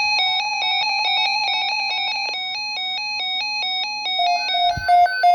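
Electronic alert tones that open an Emergency Alert System tornado watch: a fast warbling run of beeps that step between pitches, then from about four seconds a louder, slower beeping that alternates between a low and a high pitch.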